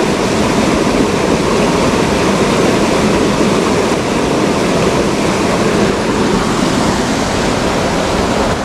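Fast-flowing river rushing over rocks and rapids: a steady, loud rush of water.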